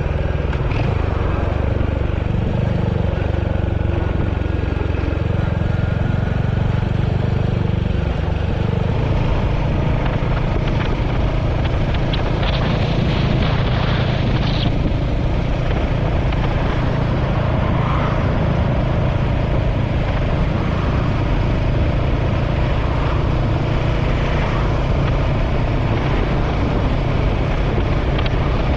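Royal Enfield Hunter 350's single-cylinder engine running steadily under way on the road.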